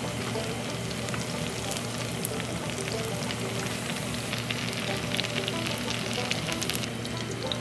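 Cubes of extra-firm tofu deep-frying in hot cooking oil: a steady sizzle with clusters of crackling pops, busiest in the second half.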